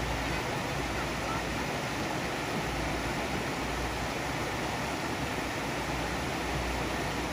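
Steady rush of water pouring out of a bridge's culvert pipes and splashing into a shallow stream.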